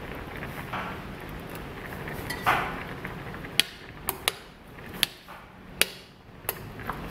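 Metal spoon clinking against a stainless steel saucepan while stirring a simmering tofu stew: about six sharp, separate clinks in the second half.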